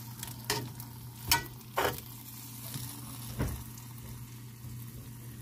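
Beef steak sizzling as it fries in butter in a cast-iron skillet, with a few sharp pops, the loudest about a second in.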